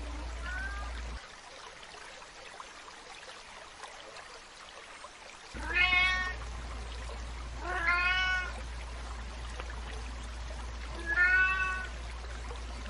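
Young tabby cat meowing: one faint short meow near the start, then three louder meows about two and three seconds apart, each rising and falling slightly in pitch. A steady hiss runs underneath.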